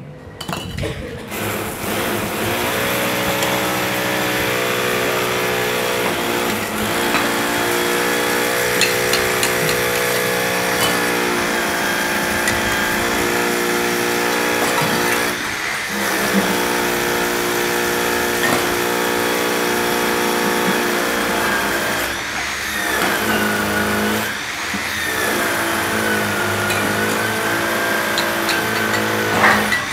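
A motor running steadily and fairly loudly, with a few short dips. In the last third a high whine-like tone rises and falls.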